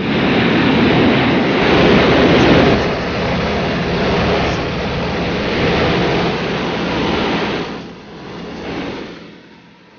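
Propeller airplane's piston engine running hard under heavy rushing noise, easing off about eight seconds in.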